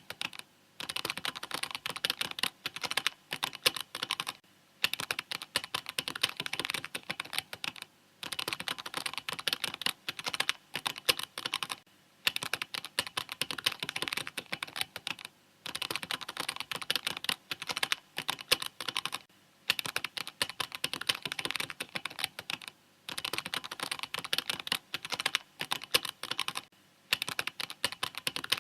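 Mechanical keyboard typing: steady runs of rapid key clicks, broken by short pauses every few seconds.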